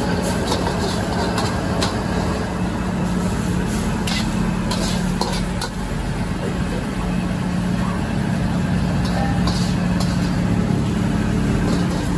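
Gas wok burner at full flame, burning with a steady loud rush and low hum. Over it a metal spatula and ladle scrape and clack against the wok as noodles are stir-fried and scooped out.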